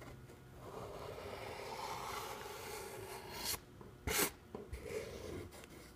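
Broad-nibbled acrylic paint marker (Montana, 15 mm nib) dragged along the edge of a painted leaf to lay in a highlight line: a steady scratchy rub lasting about three seconds, followed by two short scuffs.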